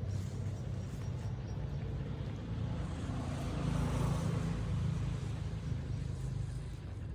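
Steady low rumbling noise that swells slightly about four seconds in.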